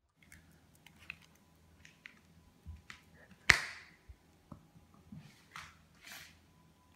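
Scattered light clicks and taps on a hard tiled floor, with one sharp knock about halfway through and a couple of short scuffs after it: a beagle puppy and a tennis ball in a game of fetch.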